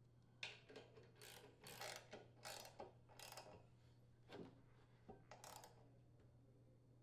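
Socket ratchet wrench clicking faintly in a series of short strokes, about two a second with a brief pause in the middle, as it tightens the mounting bolt through the snowblower's auger drive pulley.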